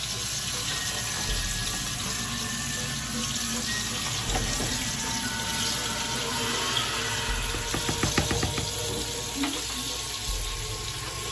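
A spoon stirring thick macaroni and cheese in a metal pot, with a few quick clicks of the spoon against the pot about eight seconds in, over a steady rushing hiss.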